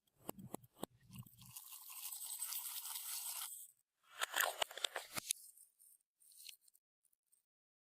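Slime being worked and mixed: a few clicks and crackles, then a steady scraping hiss for about two seconds, then a second burst of crackling clicks.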